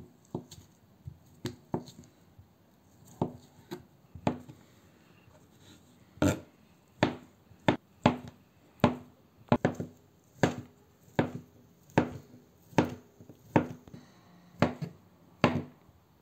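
Kitchen knife cutting boiled potatoes on the work surface, each cut ending in a knock of the blade on the surface. The cuts come irregularly at first, then settle into a steady chop a little more than once a second from about six seconds in as the potato is diced.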